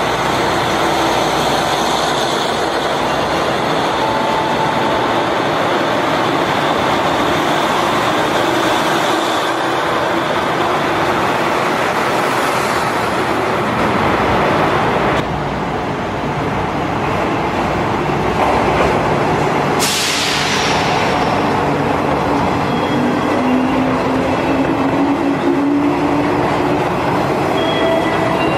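Electric trains running along a station platform, with steady motor and wheel-on-rail noise and a few faint steady tones in it. The sound changes abruptly about fifteen seconds in. A sudden hiss comes in about twenty seconds in and fades over a couple of seconds.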